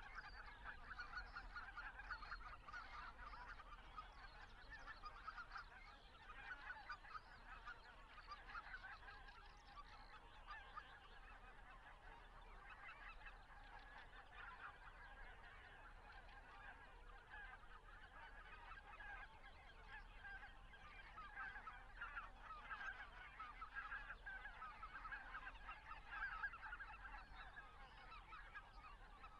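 A flock of greater white-fronted geese calling in flight, many faint, overlapping calls without a break.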